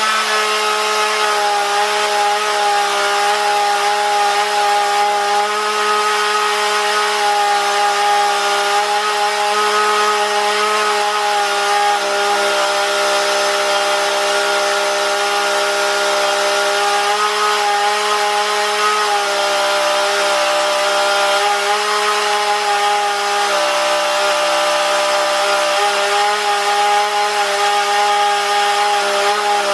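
Husqvarna 235 two-stroke chainsaw engine running steadily at high revs with no load. Its pitch shifts slightly in small steps partway through as the carburetor's high-speed screw is turned.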